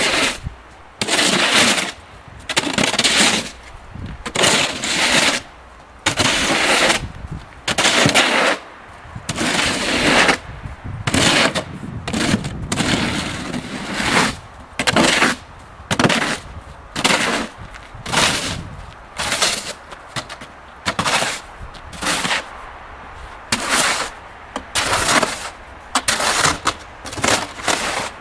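A snow shovel's blade scraping along driveway pavement in quick repeated strokes, about one every second to second and a half, each a short harsh scrape.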